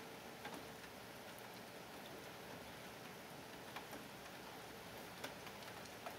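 Light rain falling: a faint steady hiss with single drops ticking now and then.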